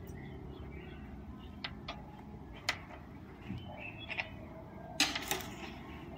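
Sharp clicks and taps of a parakeet moving about its wire cage, a few single knocks and then a quick cluster about five seconds in, the loudest of them.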